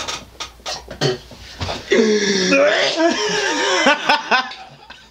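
Hard laughter, loud from about two seconds in, mixed with groaning and coughing from a man reacting to a foul-tasting jelly bean.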